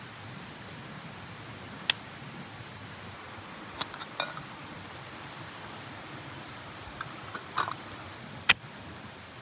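Aluminium camping pot and lid clinking sharply a handful of times as the lid is handled and lifted off, the loudest clink near the end, over a steady hiss.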